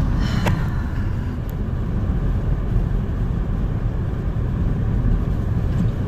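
Steady low road and engine rumble inside a moving car's cabin, driving on a snowy highway.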